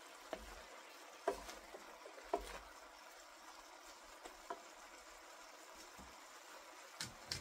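Wooden spatula stirring sliced bitter melon in a nonstick pan: soft scraping and a few sharp knocks of the spatula against the pan, the loudest about one and two seconds in, and two more near the end, over a faint steady hiss.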